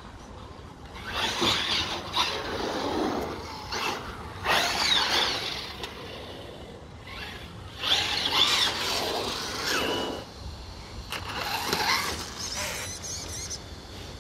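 Electric-converted Agama A8T 1/8-scale truggy, running on a 2650 kV brushless motor and 120 A ESC, driving on asphalt. The motor whines in about four bursts, its pitch rising and falling as the truggy speeds up and slows down.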